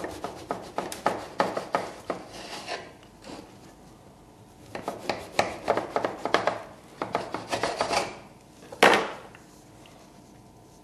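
A knife saws back and forth through the crust of a braided brioche loaf on a wooden cutting board, in two runs of quick rasping strokes. A single louder knock comes about nine seconds in.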